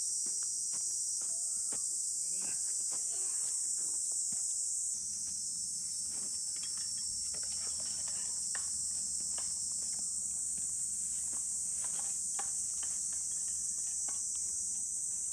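A steady, high-pitched chorus of insects trilling, with scattered light clicks and knocks.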